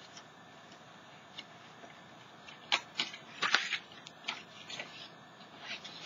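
Scissors cutting through old book paper: a few sharp snips with paper rustling, starting about halfway in.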